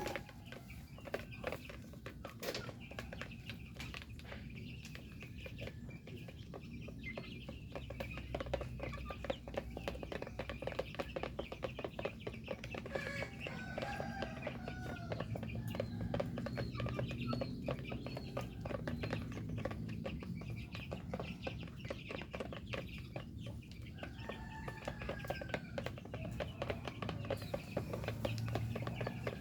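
Chickens clucking, with a few short higher calls, over many small clicks.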